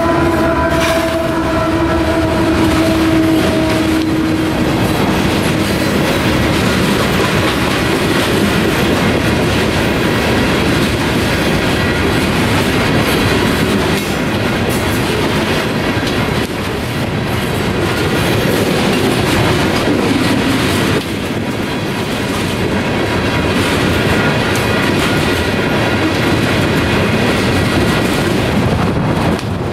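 Union Pacific coal train passing close by: the locomotive horn, already sounding, stops a few seconds in. After that come GE diesel locomotive engine noise and loaded coal hopper cars rolling past with wheels clicking over the rail joints. Strong wind buffets the microphone.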